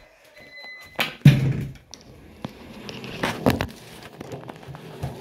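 Handling noise from a phone being carried and moved about: scattered knocks and rustles, with one loud thump a little over a second in.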